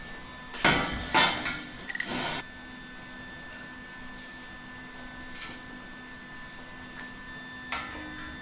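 Steel square tubing and a clamp being handled on a welded frame: a run of metal clattering and scraping for about two seconds, then a faint steady hum with one sharp click near the end.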